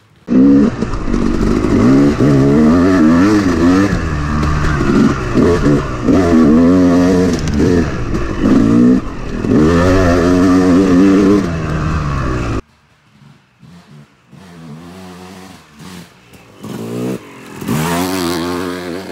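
Two-stroke Yamaha dirt bike engine revving up and down hard as it is ridden through ruts, heard close from the bike itself. About twelve seconds in the sound drops to the same kind of engine further off, growing louder as the bike rides close past near the end.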